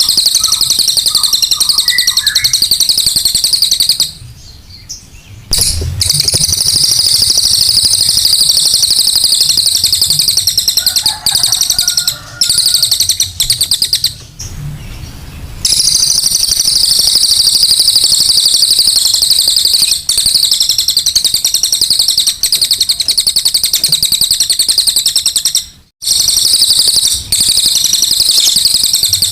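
Cililin songbird singing its fast, high-pitched rapid-fire trill, a 'tembakan' burst song. It pauses briefly about four seconds in and again about fourteen seconds in.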